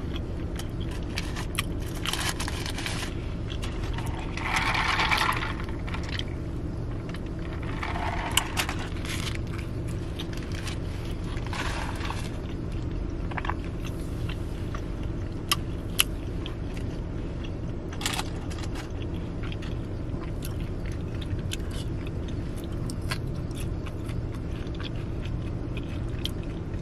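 Eating sounds inside a car: chewing a burger and curly fries, with rustles of paper wrapper and scattered small clicks, over a steady low hum of the car cabin.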